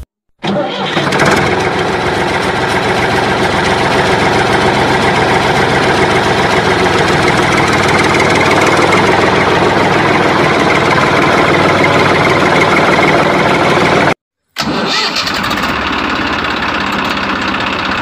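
A vehicle engine starting and then running steadily. It drops out abruptly for a moment near the end, then carries on running.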